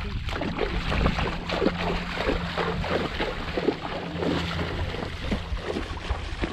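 Shallow muddy water splashing and sloshing in quick irregular bursts as people wade through it and grope for fish with their bare hands, over a steady low rumble of wind on the microphone.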